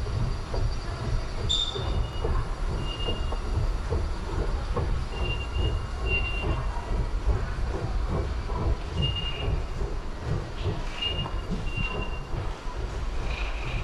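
Subway station din: a steady low rumble with short high-pitched squeals every second or two, like the wheels of a train in the station.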